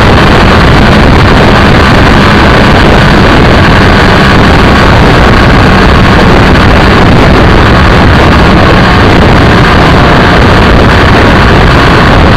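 Loud, steady rush of wind and road noise on a camera mounted low on a BMW F800ST motorcycle cruising at speed, with the bike's parallel-twin engine running steadily underneath.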